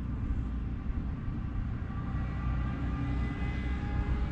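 Steady low rumble of a vehicle engine, with faint whining tones above it that slowly shift in pitch.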